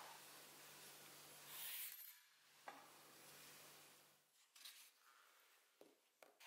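Faint rubbing of a fingertip over paper laid on a coin, with a steady low hum, cutting off suddenly about two seconds in. After that it is nearly silent, with a few faint clicks as coins and paper are handled near the end.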